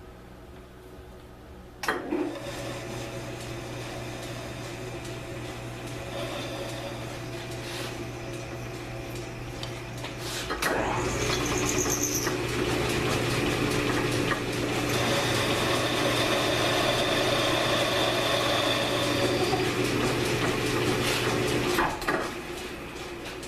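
1942 South Bend metal lathe starting with a click about two seconds in and running with a steady motor hum. From about halfway through to near the end, a louder rasping cutting sound is heard as the tool plunges into the steel AR15 bull barrel to cut the thread relief groove, then it eases off.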